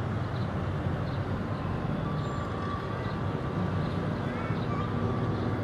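A steady low rumble of a heavy vehicle running, with faint high chirps over it.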